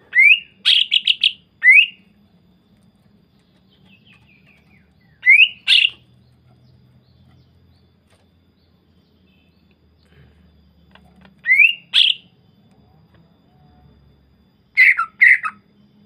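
Greater green leafbird (cucak ijo) calling in four short, loud phrases a few seconds apart. Each phrase opens with a quick rising whistle and breaks into sharp, rapid notes; the first phrase is the longest.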